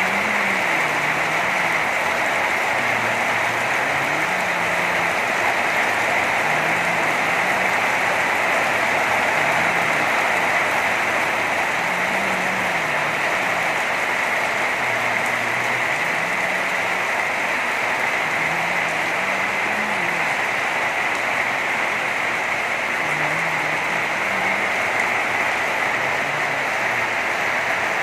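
Heavy rain falling steadily: an even, unbroken hiss of drops on wet paving, slate roofs and foliage.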